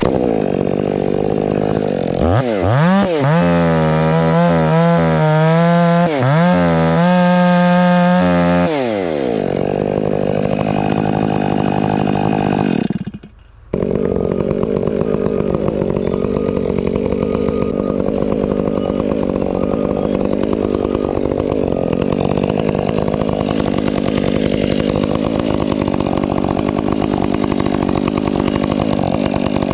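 Husqvarna 500i two-stroke chainsaw revving up and down several times, then running steadily at high speed, with a brief drop in sound about 13 seconds in.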